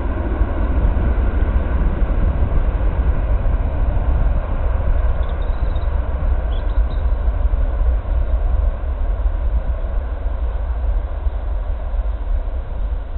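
Distant roar of a Boeing 737-800's CFM56 jet engines as the airliner rolls out and slows on the runway after landing, under a heavy low rumble of wind on the microphone.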